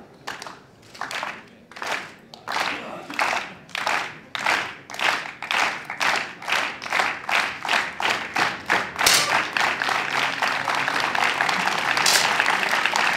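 Spectators clapping in unison, a slow beat that speeds up and grows louder, then dissolving into continuous applause near the end.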